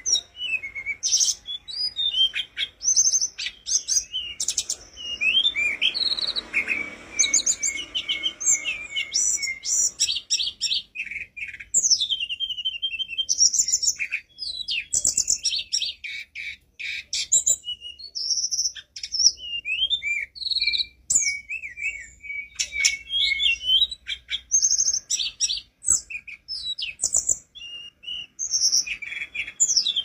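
A caged tledekan gunung, a blue-and-orange flycatcher, singing nonstop: a rapid, varied run of high sliding whistles, chirps and trills with only brief breaks.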